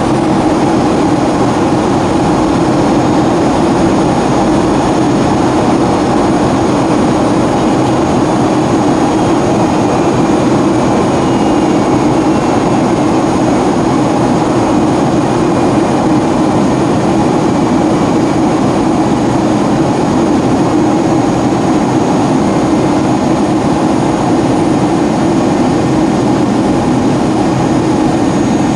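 Steady drone of jet engines and airflow inside the cabin of a Boeing 757-200 in flight. A faint high whine falls slowly in pitch around the middle.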